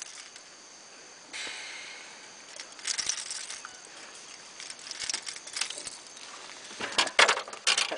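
Handling noises while a hooked fish is worked free with pliers: rustling, with several sharp clicks and knocks that bunch together near the end.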